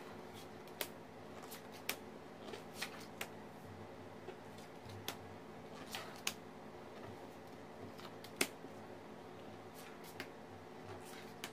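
Tarot cards being slid out of a fanned spread and laid down on a cloth-covered table: irregular light taps and card snaps, one sharper click a little past the middle, over a faint steady hum.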